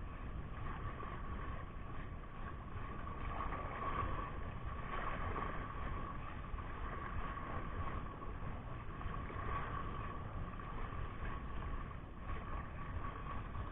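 Wind buffeting the microphone over the wash of small sea waves against a rocky shore, with a thin steady tone running under it.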